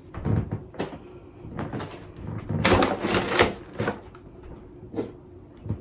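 Household handling sounds of decorations being packed away: a few sharp clicks and knocks, with a burst of clattering and rustling lasting about a second near the middle.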